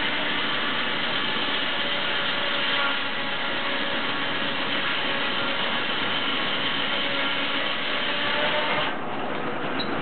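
Steam-powered 54-inch circular saw ripping a large cottonwood log into a rough plank: a steady, dense sawing noise. The sound thins out abruptly about nine seconds in, as the cut comes to its end.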